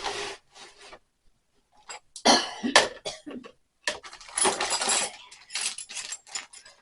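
Hand tools clinking and clattering as they are handled and put into a toolbox, in irregular bursts, with two sharp knocks a little over two seconds in.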